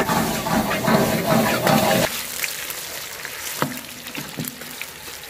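Battered eggplant pieces sizzling in hot oil in a wok, with a few light clicks of a ladle against the wok. The sizzle is louder for about the first two seconds, then settles lower.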